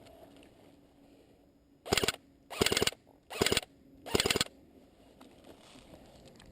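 Airsoft electric rifle firing four short full-auto bursts, each a rapid rattle of shots lasting about a third of a second, roughly two-thirds of a second apart.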